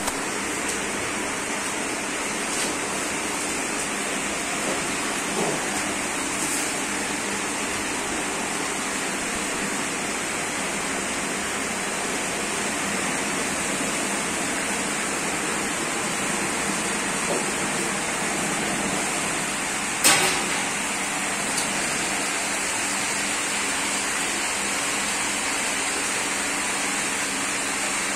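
Lit gas burners of a commercial three-burner range (Chinese wok and Indian burners) running with open flames, a steady rushing hiss of burning gas. A single sharp knock comes about two-thirds of the way through.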